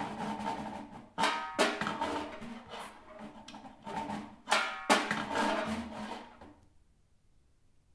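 Snare drum played with drumsticks and a long wooden stick: two pairs of sharp strikes, each pair followed by a scraping, rubbing sound across the drum. The sound dies away about six and a half seconds in.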